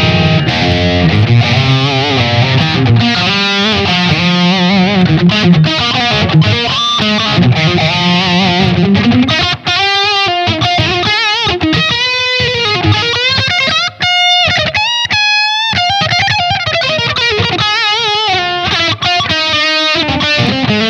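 SQOE SETL960 HH electric guitar, with Alnico humbucking pickups, played through an amp. It starts with low chordal riffing, then from about nine seconds in moves to single-note lead lines with bends and vibrato, climbing to high sustained notes.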